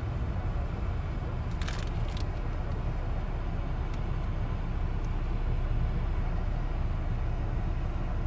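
Steady low rumble of a car heard from inside the cabin, with a few faint clicks about two seconds in.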